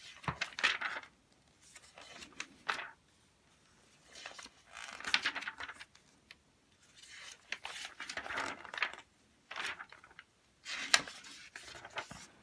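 Glossy magazine pages being turned one after another, each turn a short papery rustle and swish, several in a row with pauses between.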